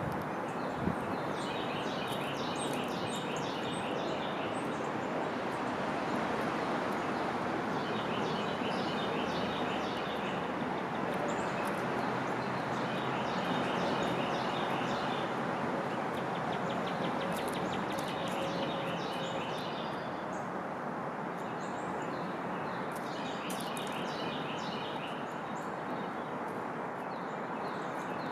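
A songbird singing short, rapid twittering phrases every few seconds over a steady background rush.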